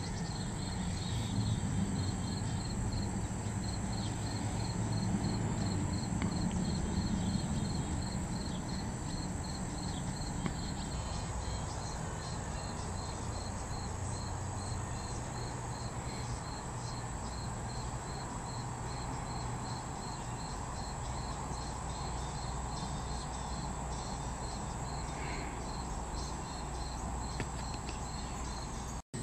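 Crickets chirping in an even rhythm, about two or three high chirps a second, over a steady high insect hiss. A low rumble sits under it for the first ten seconds or so, and the sound cuts out for an instant near the end.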